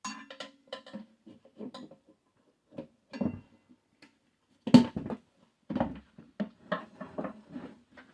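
Tire irons knocking and clinking against a motorcycle front rim and rim protectors while the tire bead is levered over the rim edge: a run of irregular knocks, the sharpest about five seconds in.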